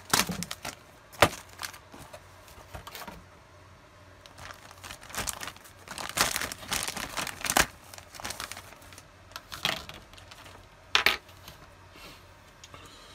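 Clear plastic bag crinkling in irregular bursts as a plastic model-kit sprue is handled inside it and drawn out, with a couple of sharp clicks near the start.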